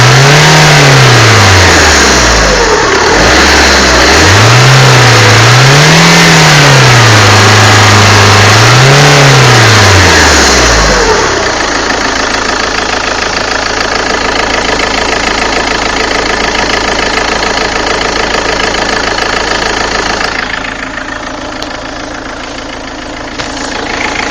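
Peugeot 406 HDi diesel engine revved up and down several times, then settling back to idle about eleven seconds in. The owner is showing a strange noise he cannot place, with the engine also throwing oil.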